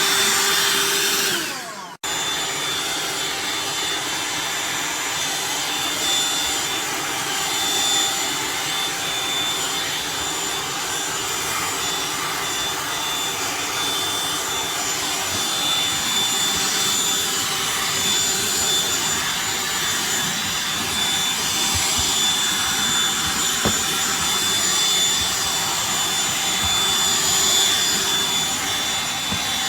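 BLACK+DECKER Dustbuster cordless handheld vacuum running. Its sound falls away and cuts out briefly about two seconds in, then it runs on with a steady whine and hiss.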